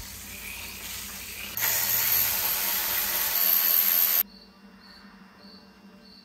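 Compressed-air blow gun hissing as it blasts dirt off the front of the engine, getting louder about one and a half seconds in and cutting off suddenly after about four seconds. A cricket chirps faintly in a steady rhythm afterwards.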